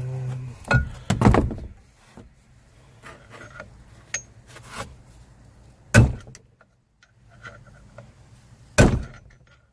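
A screwdriver being struck to stake a fastener on the driveshaft so it won't back out: a few sharp metal strikes several seconds apart, the loudest near the end, with lighter clicks between.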